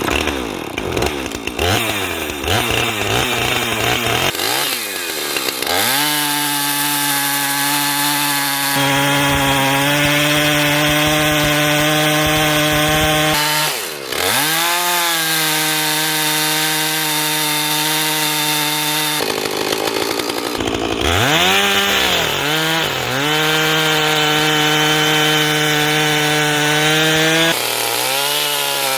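Gas chainsaw in a chainsaw mill ripping lengthwise through a black walnut log, its engine loud and high-revving. The pitch wavers as it revs up over the first few seconds, then holds steady under the load of the cut, dropping briefly and climbing back twice.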